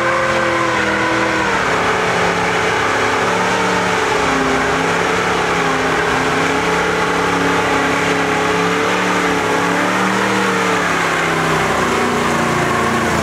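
A classic muscle car's engine held at high revs during a burnout, its rear tyres spinning on the asphalt. The engine note holds steady, wavering slightly, with a brief dip about a second and a half in.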